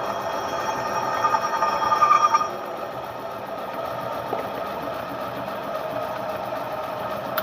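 Old pillar drill running and its bit cutting through thick steel plate, a steady mechanical whine that grows louder and brighter for a second or so around two seconds in, then settles.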